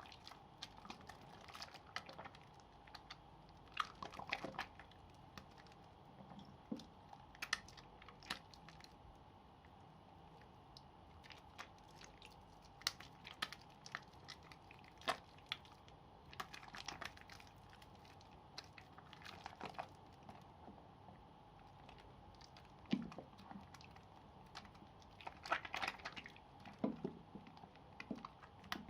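Wet soap pieces being lathered and squeezed by hand: faint, irregular squishes, crackles and small clicks, with a faint steady hum underneath.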